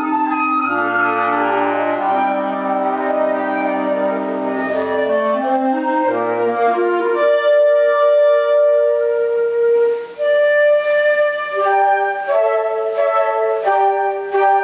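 Woodwind ensemble of flutes and clarinets, with a bass clarinet, playing a slow piece in held chords. A low bass line sounds under the chords in the first half, then a high melody note is held. After a short break near the end, the parts move in shorter, detached notes.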